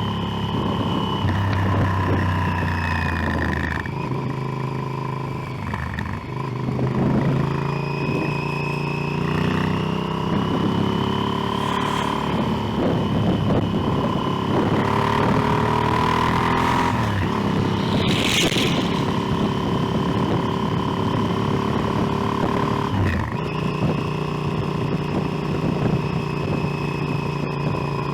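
Motorcycle engine running on the move, its pitch stepping up and down several times with gear changes and throttle, rising steadily for a few seconds midway. A short hiss cuts in about 18 seconds in.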